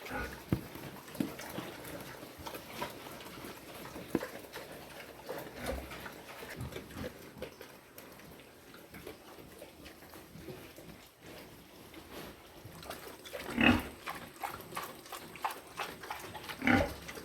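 Pigs eating carrots: irregular crunching and chewing, with two louder pig calls near the end.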